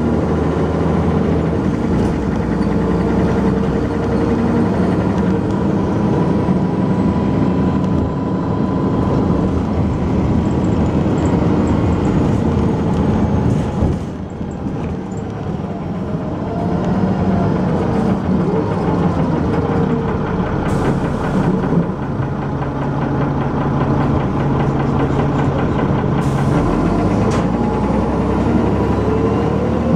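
Dennis Arrow double-decker bus's diesel engine running under way, heard from on board with its knocking and thrash. The engine note dips briefly about halfway through, then picks up again.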